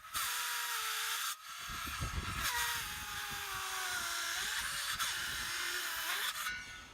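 Ridgid 18V cordless circular saw cutting into a board with steel wood screws driven through it. The motor's whine drops in pitch under load and recovers, with a short dip about a second and a half in, and the saw winds down near the end.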